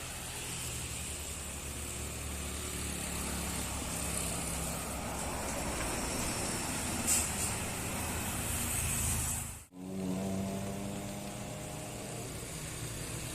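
Large diesel tour bus passing on an uphill road, engine and road noise steady, with a brief sharp hiss about seven seconds in. After a short break near ten seconds, a steady low engine drone.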